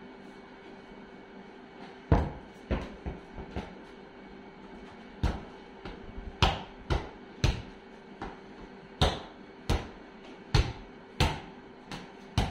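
A ball being bounced again and again: about fifteen sharp thuds at uneven intervals, starting about two seconds in, with a short pause in the middle.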